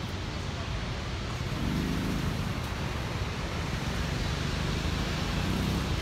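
Motorcycle engine running, with a low steady rumble and wind on the microphone.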